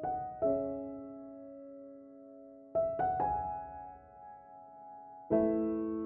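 Slow, gentle piano music: single notes and chords struck every second or two and left to ring and fade.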